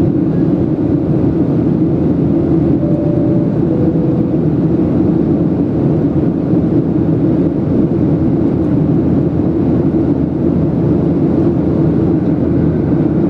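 Steady cabin noise of a Boeing 737-700 climbing after takeoff, heard inside the cabin over the wing: the CFM56-7B turbofans and the rush of air past the fuselage make an even, low drone.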